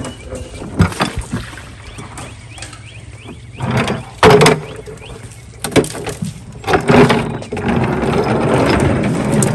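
Plastic wheeled mop bucket knocking and rattling as it is handled and tipped, with a loud splash of soapy mop water onto the ground about four seconds in.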